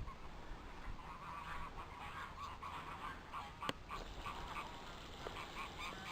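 Farm poultry calling: a fast, continuous run of short repeated calls from a flock, with one sharp click about midway.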